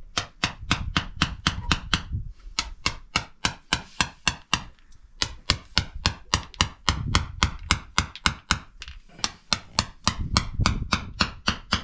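A small hand hammer tapping rapidly and evenly, about five sharp strikes a second with two short breaks, setting pebbles into a wet cement floor.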